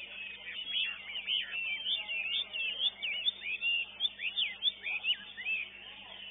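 Chinese hwamei singing: a quick, varied run of clear whistled notes that slide up and down, loudest through the middle.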